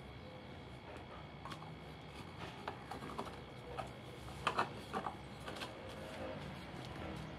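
Carved coconut shell pieces clicking and knocking lightly against each other as they are handled and fitted together, with a few sharper knocks around the middle.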